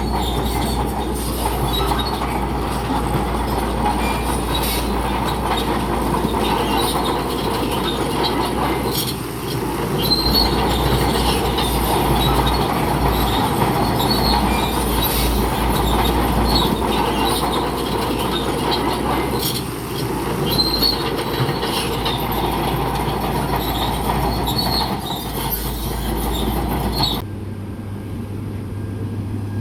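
Crawler bulldozer working: engine running under load while its steel tracks squeal and clank, with repeated high-pitched squeaks and knocks. About two seconds before the end the sound cuts suddenly to a steadier, quieter engine drone.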